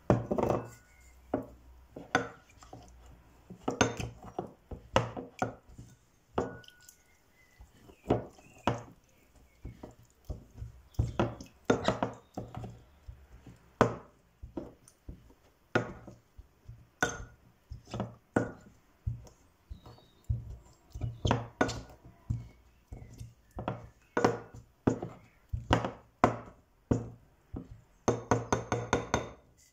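Wooden pestle pounding common dock leaves in water in a ceramic bowl: irregular knocks of wood on ceramic, roughly one or two a second, with a quick flurry of strokes near the end. This is the leaves being bruised to work up a soap.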